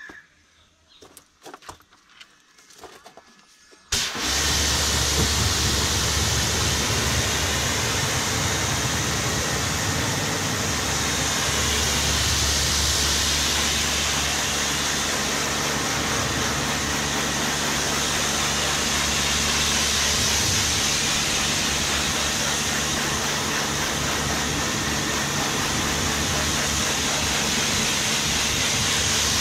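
Pressure washer switched on about four seconds in, then running steadily: a motor's low hum under the loud hiss of the water jet spraying onto a car bonnet to rinse off tar and glue remover. A few faint clicks come before it starts.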